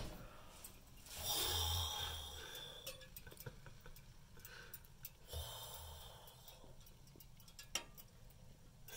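A person breathing close to the microphone: two soft breaths, about a second in and again about five seconds in, with faint scattered clicks and one sharper click near the end.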